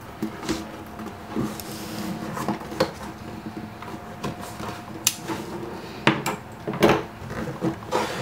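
Cardboard box with a foam insert being closed and handled on a wooden desk: scattered knocks, scrapes and thumps of cardboard against wood, the loudest a little past the middle.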